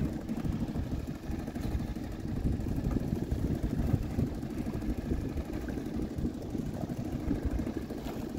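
Boat motor running steadily at trolling speed, a rough low rumble, with a short knock right at the start.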